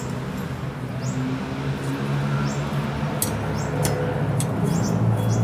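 A steady low machine hum that grows a little louder near the end, with light plastic clicks from a wiper blade being worked off its wiper arm, and faint bird chirps.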